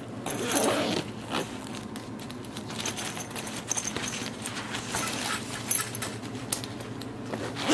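Zippers of a Dakine Mission Photo 25L nylon backpack being pulled closed, with the fabric rustling as the bag is handled and small clinks of the metal zipper pulls.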